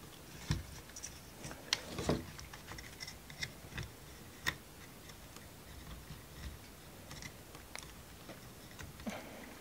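Irregular small clicks and taps of wooden model-kit parts being handled and pressed together, as a tight-fitting piece is worked into place.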